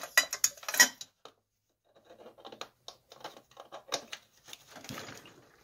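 Clicks and rattles of a plastic magnifying-lamp housing and its loose wiring being handled, dense for about the first second, then a short pause and softer scattered clicks.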